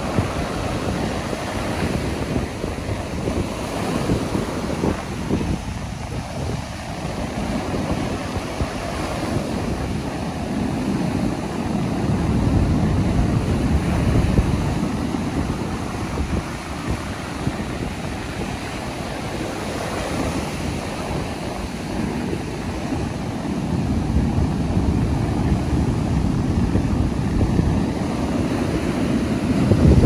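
Ocean surf breaking and washing up a sandy beach: a continuous rush that swells louder around the middle and again near the end as bigger waves come in.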